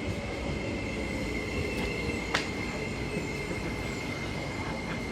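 MTR SP1900 electric train running, a steady rumble with a thin high whine held on one pitch, and a single sharp click about two and a half seconds in.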